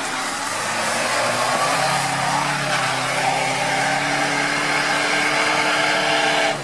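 UAZ Patriot SUV engine held at high revs while its wheels spin and churn through marsh mud, the vehicle straining to push through. The engine pitch climbs over the first couple of seconds, then stays high and steady.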